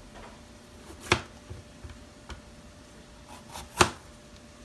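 Kitchen knife slicing a green bell pepper into rings on a plastic cutting board: two sharp taps of the blade meeting the board, about a second in and near the end, with a few fainter taps between.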